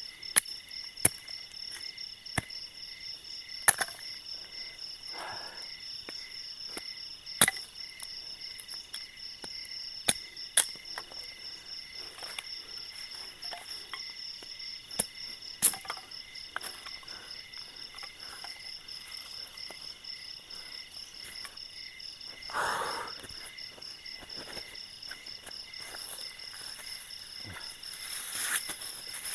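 A blade chopping bamboo sticks for kindling: sharp, single knocks at irregular intervals, about a dozen loud ones. Crickets and other insects keep up a steady high chirring underneath, and there is a brief rustle of movement a little after two-thirds of the way through.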